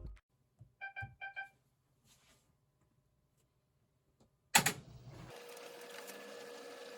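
Panasonic NA-VX9300L drum washing machine: three quick beeps from the control panel, then about four and a half seconds in a loud clunk and a steady hum with a constant tone, as a part switches on in the service-mode operation check.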